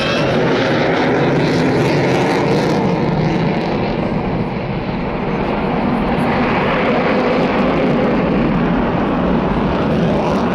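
Boeing F-15I fighter's twin Pratt & Whitney F100 turbofan engines, a loud steady jet roar as the aircraft flies past.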